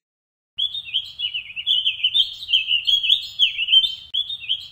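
Songbird singing a long, rapid warbling song, starting about half a second in.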